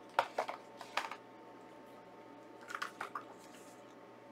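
Light handling of a plastic Blu-ray case and its paper insert. A few sharp clicks and taps come in two short groups, one in the first second and another about three seconds in.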